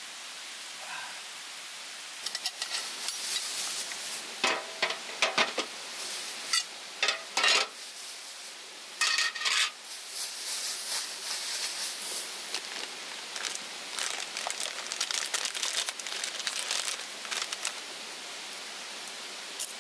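A plastic bag and a foil snack bag crinkling and rustling as they are handled. The crinkling comes in irregular crackly bursts from about two seconds in until near the end, over a steady hiss.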